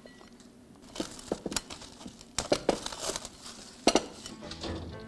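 Plastic cling film pulled from its roll and crinkled down over a glass mixing bowl, a string of sharp crackles and snaps with a louder one near the end.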